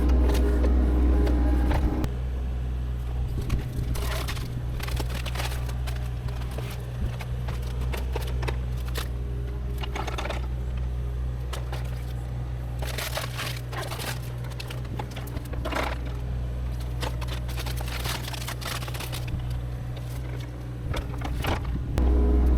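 A heavy machine's engine running steadily, working harder in the first two seconds and again near the end, with scattered cracking and scraping of brush and branches.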